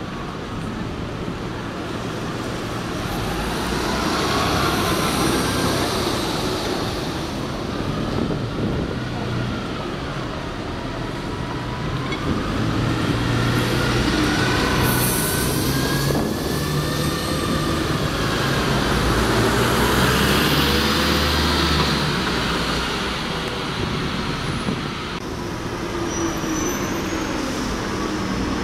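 City buses pulling past one after another: diesel engines running and swelling in loudness as each bus accelerates by, with whining tones that slide up and down in pitch.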